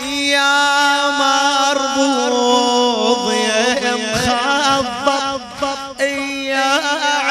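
A male radood chanting a long, melismatic line of Husayni lamentation in the old Iraqi Husayni melodic style, over a steady held low drone.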